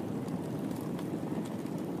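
Wood fire crackling in a fireplace: a steady low rumble of burning with scattered sharp snaps and pops.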